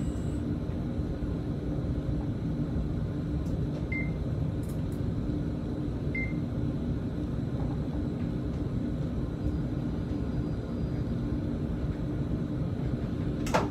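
Steady low rumble and hum of a tram running, heard from inside the driver's cab. Two short high beeps sound about four and six seconds in.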